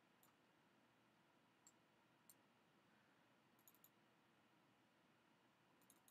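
Near silence with faint, sharp computer-mouse clicks scattered through, including a quick run of three about two-thirds of the way in and a few more at the end.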